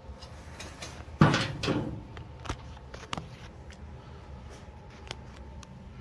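Handling clatter from small-engine parts being worked by hand: one sharp clunk a little over a second in, then a few lighter clicks and taps.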